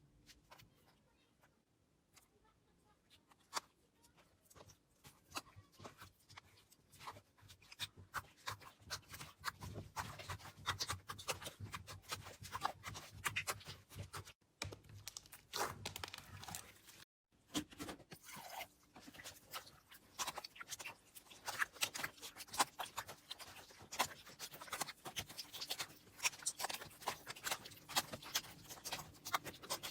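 Hands squishing, pressing and stretching slime, making dense, irregular crackling and popping clicks. The sound is broken twice by short silences.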